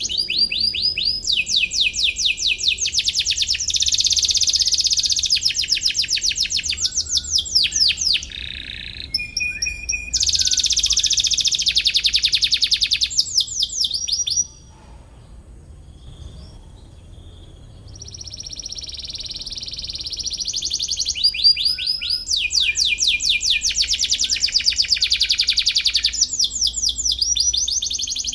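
Domestic canary singing long phrases of rapid trills, fast runs of repeated high notes. It breaks off for a few seconds about halfway through, then starts up again.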